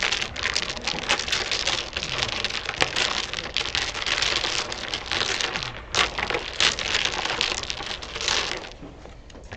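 A double-six set of dominoes being shuffled face down on a wooden table by hand: a dense, continuous clatter of tiles clicking against each other and sliding on the wood. It eases off near the end.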